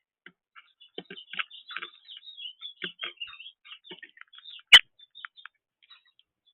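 Small birds chirping and chattering in quick, irregular short notes, with a single sharp click about three-quarters of the way in; it thins to a few faint chirps near the end.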